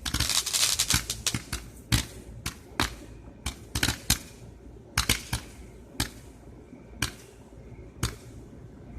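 Multi-shot fireworks cake firing rapid sharp cracks, dense in the first second, then thinning to single reports about once a second as its last shots go off.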